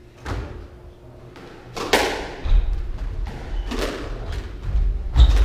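A squash rally: the ball is struck by rackets and smacks off the court walls, a sharp echoing crack about every two seconds, the loudest about two seconds in. Low thuds from the players moving on the wooden floor run under the second half.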